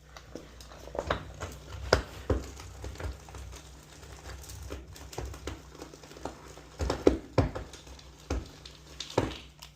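Irregular knocks and scrapes from pipe-repair work, a few of them sharp and loud, over a steady low hum.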